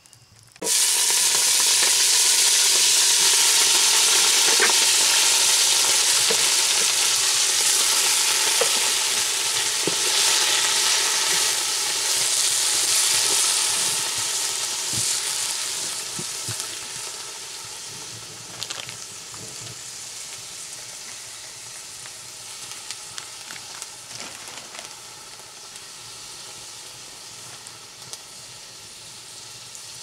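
Vegetables tipped into hot oil in a pan: a sudden loud sizzle begins just under a second in. It holds for several seconds, then gradually dies down to a quieter steady frying sizzle, with occasional sharp clicks.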